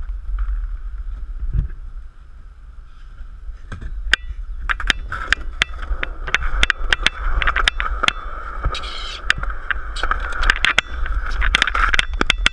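Skateboard wheels rolling over concrete, a steady rolling noise that grows louder about four seconds in, broken by many sharp clicks as the wheels cross cracks and grit.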